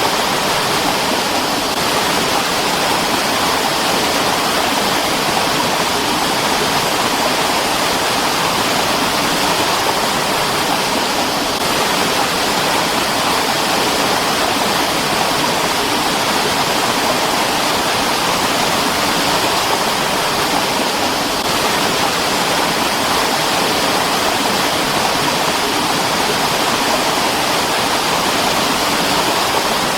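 Mountain stream rushing over rocks, a steady, even wash of flowing water with no breaks.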